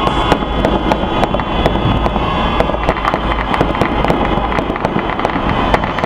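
Fireworks display going off continuously: a dense stream of sharp pops and bangs in quick succession over a steady low rumble.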